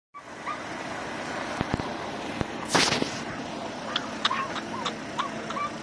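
A bus on fire: the steady rush of the flames with sharp cracks and pops, and one loud burst, the loudest sound, just under three seconds in, followed by more scattered pops.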